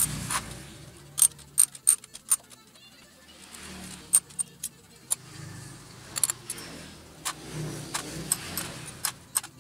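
Hand tools clicking and clinking against the aluminium cylinder head of a Suzuki Smash motorcycle engine as its bolts are worked loose: sharp metal-on-metal clicks, sometimes three or four a second, with pauses between.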